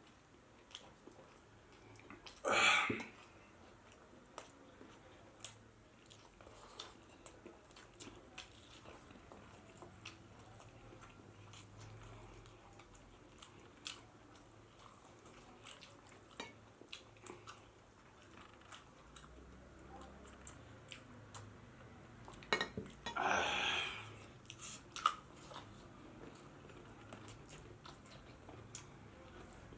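Close-miked chewing of pork biryani and rice, with many small wet clicks of mouth and food throughout. Two louder, longer noisy sounds stand out, one near the start and one about three-quarters of the way through.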